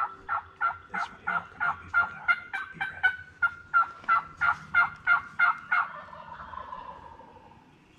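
Turkey calling: a long, even series of short calls, about three a second, lasting some six seconds, then a fainter, lower drawn-out note that fades away.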